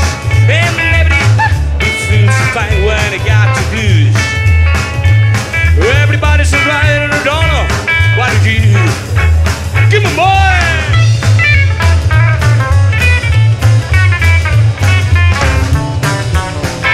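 Live band playing an instrumental break in a blues song: guitar lead with bent notes over an upright double bass and a steady beat.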